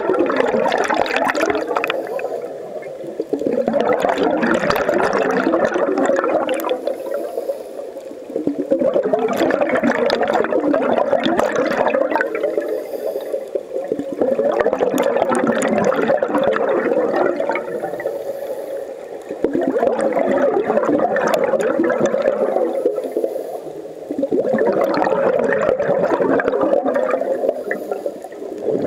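A scuba diver's regulator breathing: long bubbling exhalations of about three to five seconds each, repeating every five seconds or so, with quieter inhalations between them.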